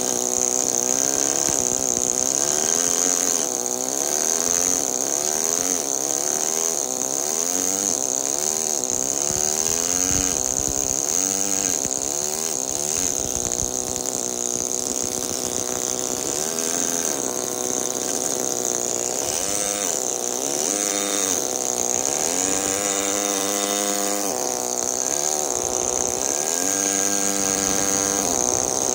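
Pneumatic carving hammer driving a chisel into marble: a continuous buzz whose pitch keeps rising and falling, over a steady high hiss.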